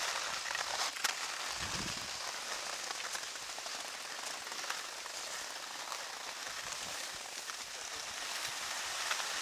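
Skis sliding over snow: a steady hiss, with a few faint clicks.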